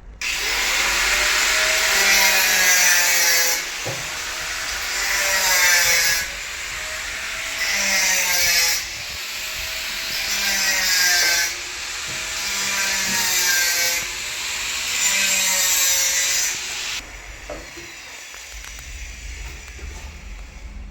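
Harsh rasping, saw-like noise of a tool cutting or abrading material, swelling and easing in long strokes about every two and a half seconds. It stops about seventeen seconds in.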